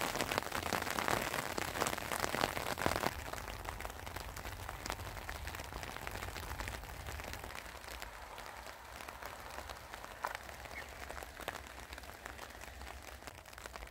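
Light rain falling on an umbrella held overhead: a close, dense hiss of drops for about three seconds, then an abrupt drop to a fainter, sparser sound of rain.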